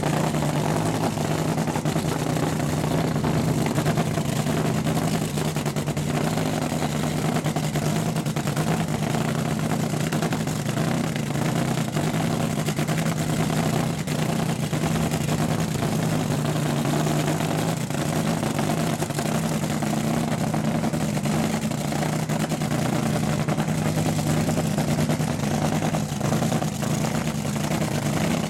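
Top fuel dragster's supercharged nitromethane-burning V8 idling, a steady, unchanging loud drone with no revving.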